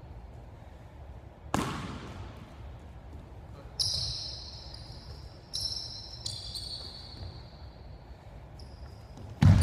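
Basketball bouncing on a gym floor, once about a second and a half in and again, loudest, just before the end, with short, high sneaker squeaks on the court in between.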